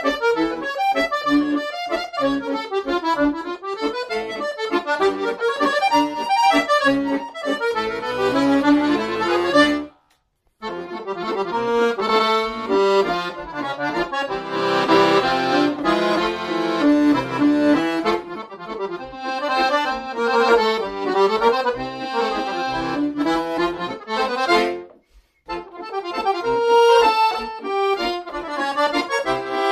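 Solo chromatic button accordion playing a tune, a melody over a bass accompaniment. The music breaks off briefly twice, about ten seconds in and again about twenty-five seconds in.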